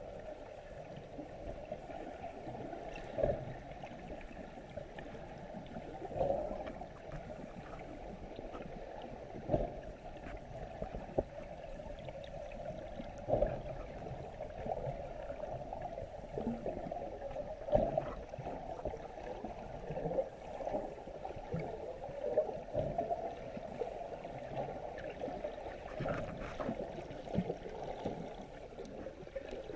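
Muffled underwater water noise picked up by a camera held under the surface, with a dull thump every few seconds.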